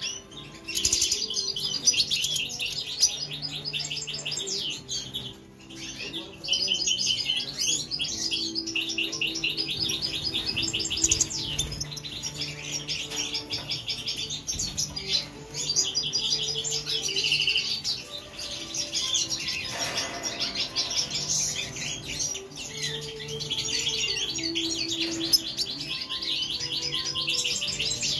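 European goldfinches twittering: a fast, nearly unbroken string of high chirps and trills, with a brief lull about five seconds in.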